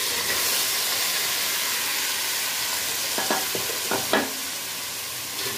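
Marinated meat and tomatoes hitting hot oil and fried onions in an aluminium pot, sizzling steadily as they fry. Two short knocks sound about three and four seconds in.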